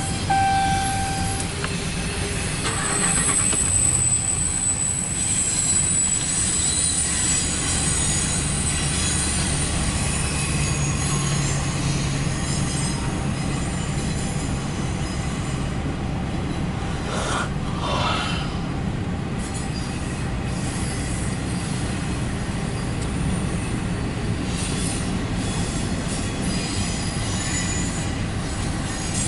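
CSX intermodal freight train rolling past with a steady rumble of steel wheels on rail, and a high-pitched wheel squeal through the first several seconds. A short steady tone sounds at the very start.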